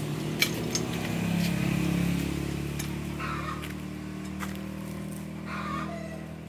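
A motor vehicle's engine running steadily off-screen, growing louder about two seconds in and then slowly fading away. A few sharp clicks and short higher calls sit over it.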